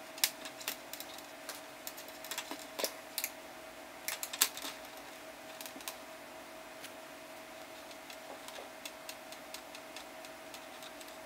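Scattered small clicks and taps of hands handling an E3D v6 hotend, turning its aluminium heatsink down onto the thread and pushing the tubing into its coupling. The clicks come thicker in the first half, over a faint steady hum.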